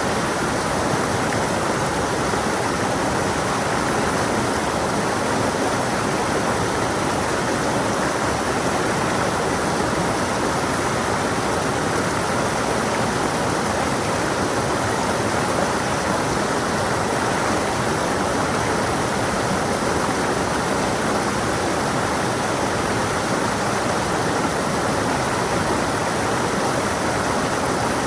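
Small stream running over rocks: a steady, even rush of flowing water.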